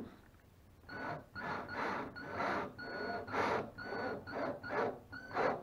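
Cordless drill driving a screw through a glued trim strip into a plywood seat edge, run in short trigger bursts of about two a second, each with a brief whine.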